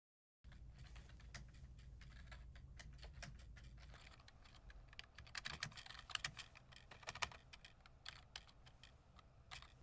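Typing on a computer keyboard: irregular key clicks, busiest around the middle, over a low steady hum of office room tone. The sound starts about half a second in, after dead silence.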